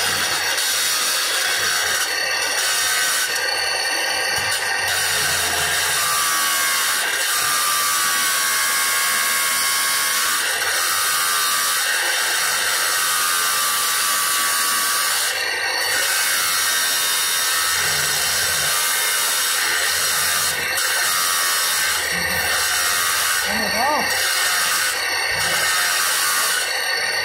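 Handheld electric marble cutter wet-cutting through a marble slab: a steady, continuous grinding whine from the blade in the stone, the motor's pitch wavering as the load on it changes.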